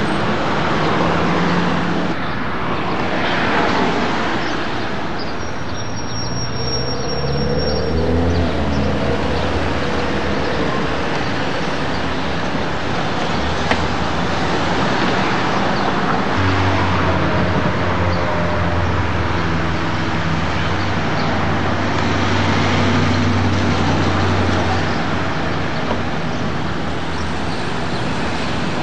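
Street traffic at a city intersection: cars passing and engines running, with a low steady engine hum through much of the middle stretch.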